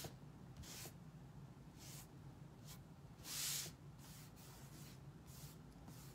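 A hand rubbing over an adhesive stencil on a board, smoothing it down in several short, soft swishing strokes; the longest and loudest comes about three and a half seconds in.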